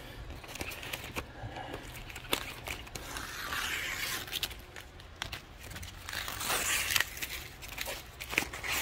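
Handling noise from a painted plastic dash trim piece being moved and turned over: light scrapes, rustling and scattered small clicks, over a steady low hum.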